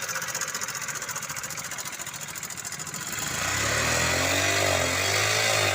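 Honda Shine motorcycle's 125 cc single-cylinder four-stroke engine idling with a fast, even clatter, then revved up and back down from about three seconds in. Its sound is very bad, the sign of an engine due for a full overhaul.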